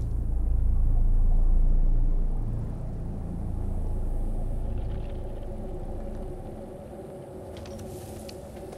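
A deep low rumble that swells over the first two seconds and then fades away by about seven seconds in, with a faint steady hum above it.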